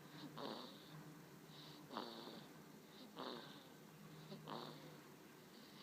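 Faint snoring of a six-week-old in its sleep: four short, rough snoring breaths about every second and a half, each with a light whistling hiss.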